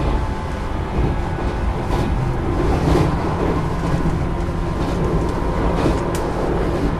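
JR West 475 series electric train heard from inside its motor car: the MT54 traction motors give a steady tonal hum over the rumble of the wheels on the rails, with a few brief clacks along the way.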